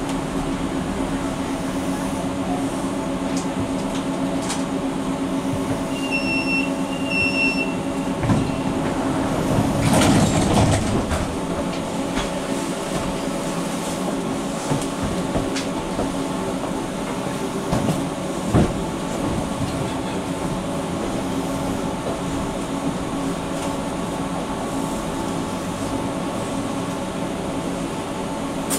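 NGT8B low-floor tram standing still, heard from inside: the steady hum of its onboard electrical equipment, with two short high beeps about six seconds in, a brief louder rush around ten seconds in, and a single thump at about eighteen seconds.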